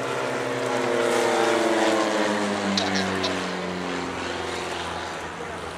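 Propeller engine of a Silence Twister aerobatic plane flying a display manoeuvre, swelling in the first two seconds, then falling in pitch and fading as it pulls away.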